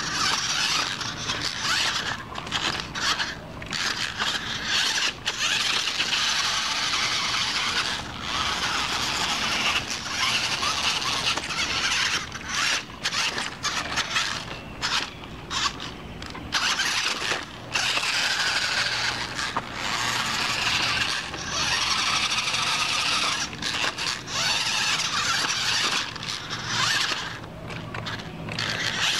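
Toy RC rock crawler's electric drive motor and gearbox whining, running in stretches that cut out briefly many times as the throttle is worked while it climbs over stones.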